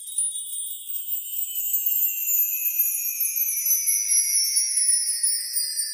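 Shimmering, chime-like edited sound effect: several high, bell-like tones gliding slowly downward in pitch together, with nothing low beneath them.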